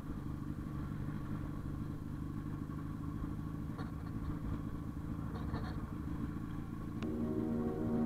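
Motorcycle engine running steadily while riding, with a low continuous rumble and a few faint clicks in the middle. Calm background music fades in near the end.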